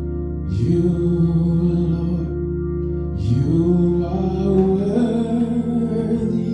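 Slow gospel song: a voice singing long, sliding phrases over sustained organ chords, the voice entering about half a second in and swooping up to a higher held note around three seconds in.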